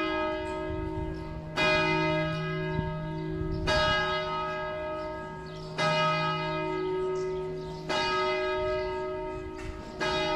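Church bell tolling: a single bell struck about every two seconds, five times, each stroke ringing on until the next.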